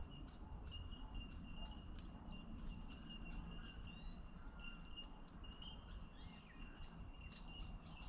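Birds chirping and calling over a steady low rumble of wind or water noise, with a thin, steady high insect-like trill and a soft call repeating about twice a second.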